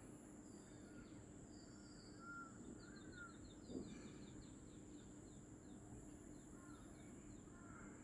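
Faint outdoor ambience of birds calling: a few short arched calls, and a quick run of repeated high chirps through the middle. Over it lies a steady high hiss, like insects.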